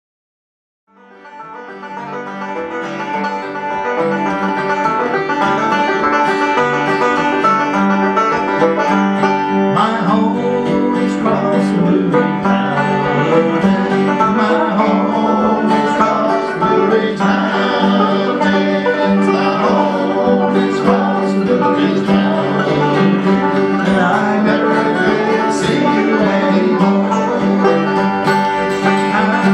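A banjo and an acoustic guitar playing a lively tune together, fading in about a second in and then running steadily.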